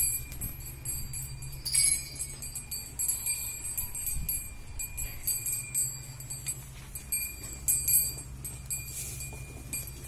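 Small metal bell on a cow's neck collar ringing and jingling on and off as the cow moves its head. The louder strikes come about two seconds in and again near the end.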